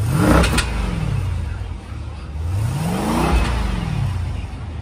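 2012 Jeep Grand Cherokee SRT8's 6.4-litre Hemi V8 revved twice through its stock exhaust, suitcase mid-muffler still fitted. The first rev comes at the start and the second about three seconds in, each rising and then falling back toward idle.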